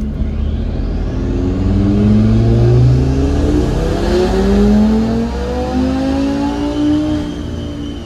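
Tuned Audi RS3's turbocharged 2.5-litre inline-five at full throttle on a chassis dyno in fourth gear, revs climbing steadily from about 2,000 toward 6,500 rpm with a rising engine note.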